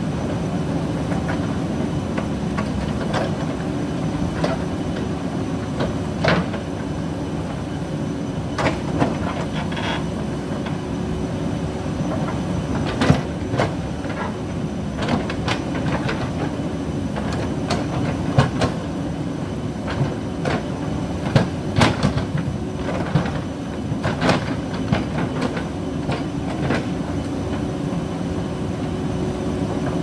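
JCB 3DX backhoe loader's diesel engine running steadily under load while its backhoe bucket scrapes and drags soil and stones across the road. Frequent sharp knocks and clatters of stones and bucket steel, most of them in the middle part.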